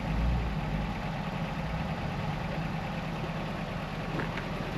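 Off-road 4x4's engine idling steadily with a low rumble, swelling slightly at the start.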